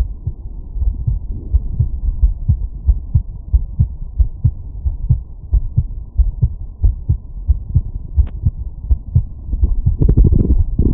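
Human heartbeat heard through a stethoscope over the aortic valve area after exertion: a steady, quick run of low lub-dub thumps. A brief louder rustle comes near the end.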